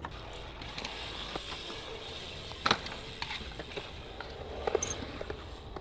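Bicycle freewheel hub ticking as the bike coasts, with scattered small clicks and two sharper knocks, one about halfway through and one near the end.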